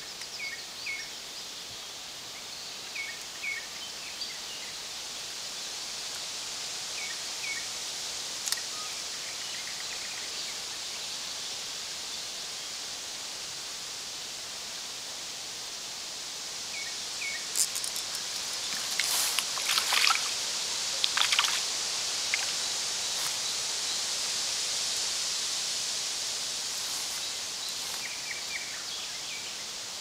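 Steady hiss of a flowing creek, with a small bird giving short paired chirps now and then. About two-thirds of the way through comes a spell of loud rustling with sharp clicks.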